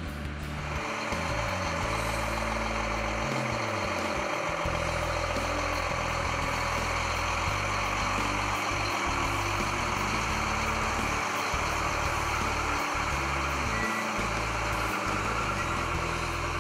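Case IH STX500 Quadtrac tractor's 500-horsepower diesel engine running steadily as the tractor moves on its rubber tracks; it comes in about half a second in, with background music underneath.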